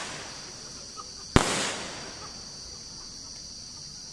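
Aerial firework shells bursting: the tail of one bang dies away at the start, then one sharp bang comes about a second and a half in and fades out over about half a second.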